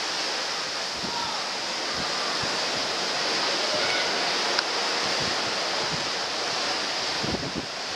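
Steady rush of sea water past a moving cruise ship, with wind on the open deck. A few low wind buffets hit the microphone near the end.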